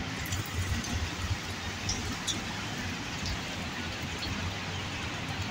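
Steady pouring rain falling on a wet paved street and parked vehicles, an even hiss with a few separate drips.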